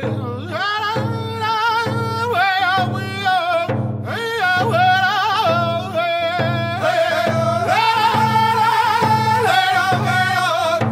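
Round dance song: a hand drum beaten in a steady, even pulse under singers in high, wavering voices.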